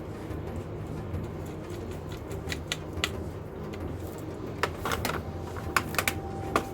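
Sharp clicks and taps of small parts being handled, a hard-drive caddy and its screws, coming thicker in the second half, over a steady low hum.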